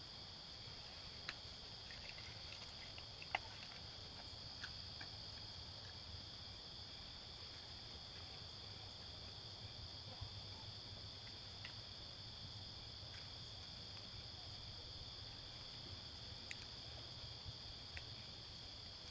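Steady late-summer insect chorus: a continuous high-pitched trilling that never lets up, with a few faint, scattered ticks and snaps.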